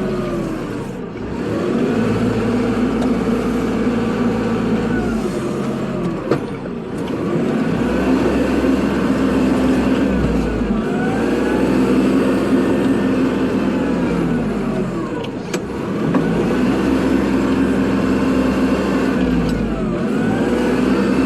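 Kubota tractor's diesel engine working under load while plowing snow. Its pitch drops and climbs back up about four times, and a brief clunk comes about six seconds in and another about fifteen seconds in.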